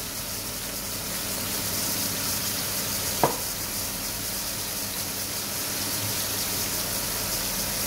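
Two beef hamburger patties sizzling steadily as they fry in oil in a non-stick frying pan, with a single sharp click about three seconds in.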